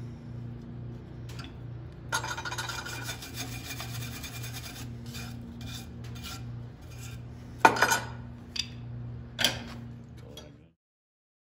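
Steel being worked at a blacksmith's bench or anvil: about three seconds of rapid scraping strokes on metal. These are followed by two loud, sharp strikes, with a steady low hum under it all. The sound cuts off suddenly near the end.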